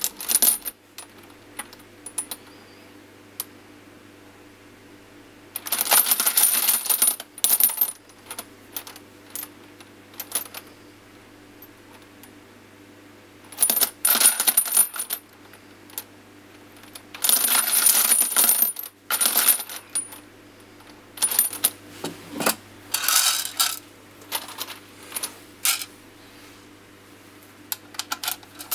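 Empty brass rifle cartridge cases clinking and jingling as a hand stirs through a tub full of them. The clinking comes in several bursts of a second or two, with scattered single clinks between them.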